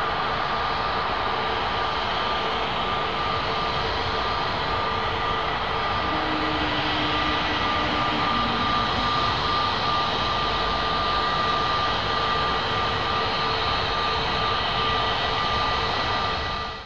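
Twin-engine jet airliner at takeoff thrust, rolling down the runway, lifting off and climbing away. The jet noise is loud and steady, with a high steady whine from the engine fans, and it cuts off suddenly near the end.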